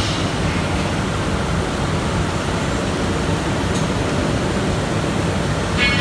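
Mesh-type veneer dryer running: a steady machine noise, heaviest in the low end. Near the end there is a brief high-pitched squeal.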